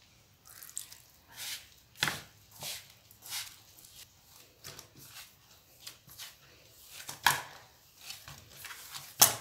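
Hands kneading wheat-flour dough in a metal bowl: irregular soft pats, squishes and knocks of the dough against the bowl, with a few sharper knocks among them.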